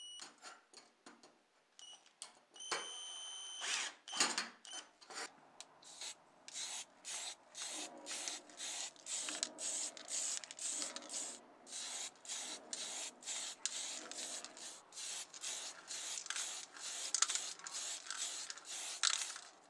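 A run of short hissing bursts of spray paint, about two a second, as a plastic model car body is sprayed. Before that, a cordless drill whines briefly with a few clicks.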